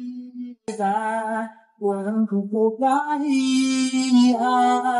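A voice singing long, held notes with short breaks between them, unaccompanied.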